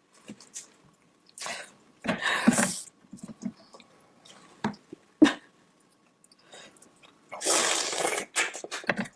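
Close-miked eating sounds of sauce-covered seafood: a few wet, smacking bites and squelches in separate bursts, with sharp clicks between them. The longest and loudest burst comes near the end.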